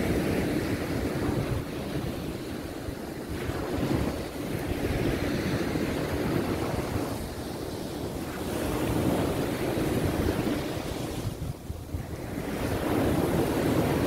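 Mediterranean surf breaking on a sandy beach: a rushing wash that swells and eases as each wave comes in, dropping off briefly near the end before the next wave builds. Wind buffets the microphone.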